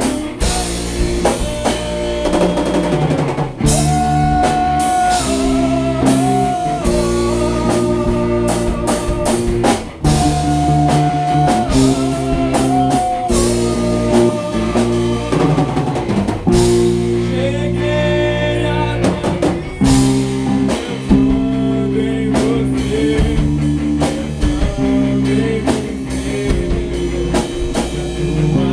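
Gospel rock band playing a song: drum kit and electric guitars, with a held, bending melody line over the chords.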